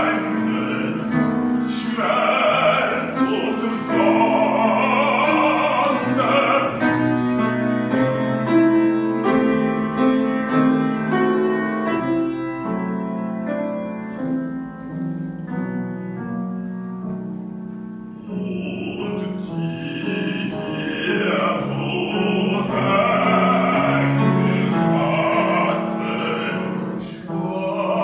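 Operatic bass-baritone singing a German art song with grand piano accompaniment. About six seconds in, the voice stops for a piano-only passage of about twelve seconds, then comes back in full voice.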